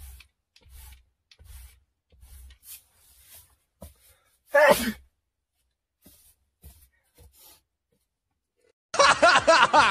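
A person sneezes once, sharply, about halfway through, the pitch dropping as it ends. Faint soft knocks come before it, and a loud, dense burst of sound about a second long comes near the end.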